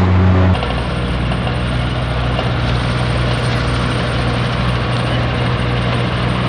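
An engine running steadily at a constant speed, a low hum; it changes abruptly about half a second in, then runs on evenly.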